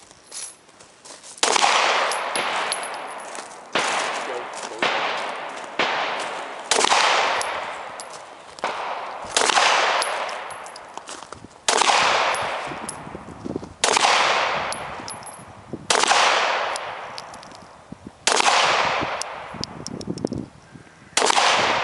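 Glock 17 9mm semi-automatic pistol firing single shots, about ten of them at a slow, roughly two-second pace, each shot trailing off slowly. The string of shots follows a jam just cleared.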